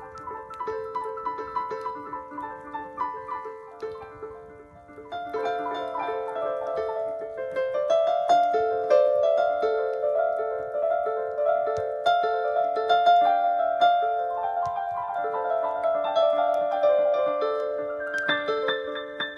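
Improvised keyboard music in a piano voice: a repeating low figure of held notes under a wandering melody, growing fuller and louder about five seconds in.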